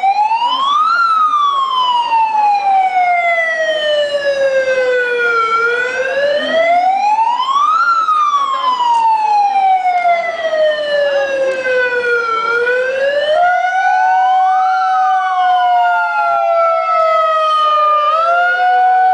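Electronic wailing siren from a handheld megaphone, its pitch rising quickly and falling slowly about once every seven seconds. About thirteen seconds in a second, steady tone sounds alongside the sweep.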